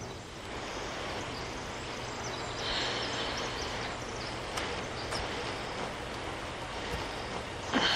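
Steady outdoor background noise, a soft even hiss, with a brief higher hiss about three seconds in and a few faint ticks.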